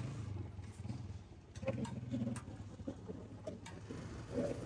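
Steel ladle and utensils clinking against steel pots and trays, in short scattered clinks over a low steady hum.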